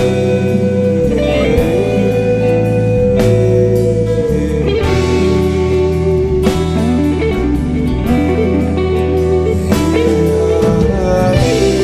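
Background music: an instrumental break with a gliding lead guitar over bass and a steady beat.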